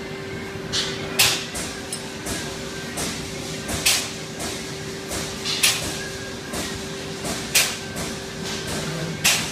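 Amada FBD-1253FS hydraulic press brake running with a steady hum, broken by sharp clunks about every two seconds and lighter clicks between.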